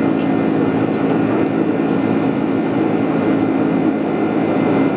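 Steady engine and airflow noise inside a Boeing 747's cabin while climbing after takeoff, with a constant low hum under it.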